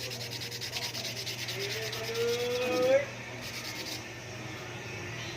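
Sandpaper rubbing on a carbon fiber part in quick, even strokes, which stop about three seconds in. A rising whine climbs under the sanding and cuts off sharply at that point, the loudest moment.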